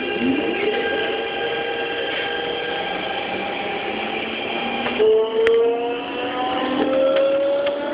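Keikyu 2100 series Siemens GTO VVVF inverter and traction motors whining as the train accelerates, several motor tones gliding steadily upward. About five seconds in, the tone jumps to a new, louder note that keeps rising, with a single click just after.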